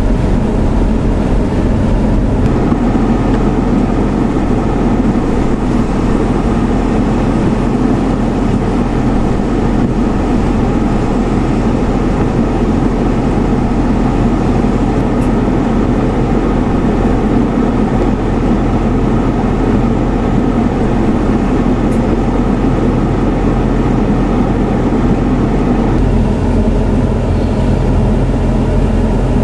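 Steady vehicle engine hum with road and wind noise, as heard while driving; a low, even drone with no changes in pitch.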